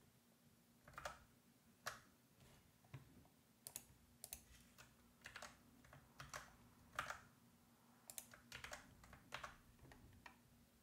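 Faint, irregular clicks of computer keys and mouse buttons, about two dozen over ten seconds, as code is selected, copied and pasted.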